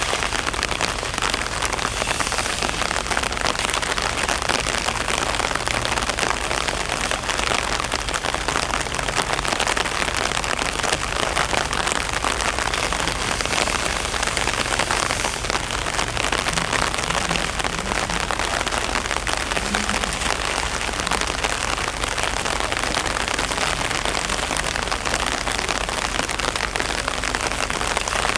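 Steady rain falling on wet sand and concrete, an even hiss that does not change.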